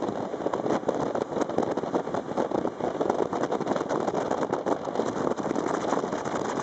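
Steady rushing noise of a boat under way, uneven and fluttering throughout, with no clear engine tone.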